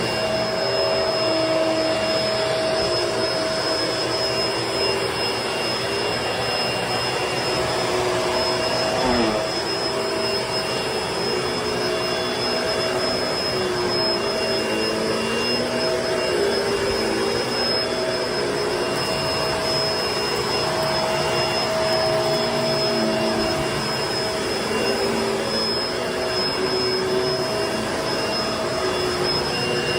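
Vacuum cleaner running steadily while it is pushed over carpet. Its motor whine holds, while lower tones waver up and down with the strokes.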